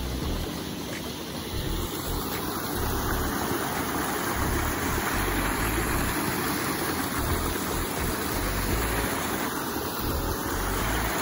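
River water rushing over rocks in a steady hiss, slightly louder after a few seconds, with uneven low rumbling underneath.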